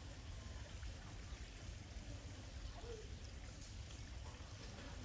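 Faint, steady outdoor background noise: an even hiss over a low, unsteady rumble, with no distinct event.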